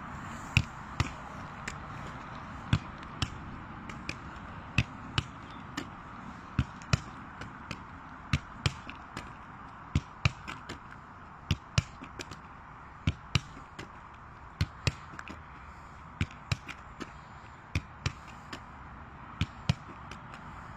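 A Gaelic football being kick-passed back and forth with the instep, alternating feet. The thuds of boot on ball and ball into hands come irregularly, about one to two a second, over steady background noise.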